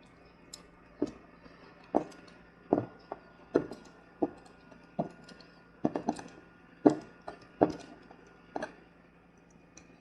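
A screw being turned into wood with a Victorinox Huntsman pocket knife's screwdriver: a run of irregular sharp clicks and light knocks, roughly one every half to three-quarters of a second, as the metal tool bites and is reset on the screw head.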